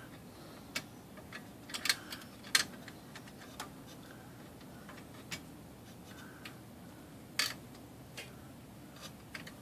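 Scattered, irregular small metallic clicks and taps as a screwdriver turns a shoulder screw into the paper release lever pivot of a Smith Corona portable typewriter.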